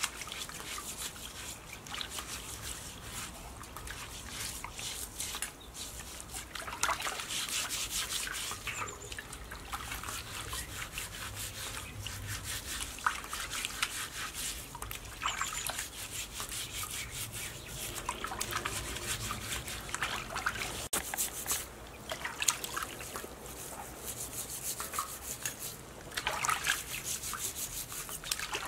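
Hands scrubbing a pig's leg in a steel basin of water: repeated rubbing strokes against the skin, with water trickling and sloshing in the basin.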